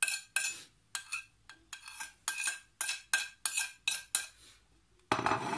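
Metal spoon scraping and tapping against a ceramic plate to knock chopped garlic into a bowl, in quick repeated strokes of about three a second. Near the end comes a louder, longer clatter.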